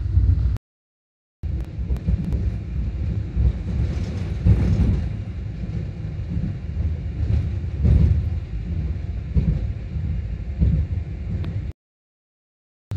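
Cabin rumble of a Wuppertal Schwebebahn suspension railway car running along its overhead rail at speed: a steady low rumble, broken twice by about a second of complete silence, once about a second in and once near the end.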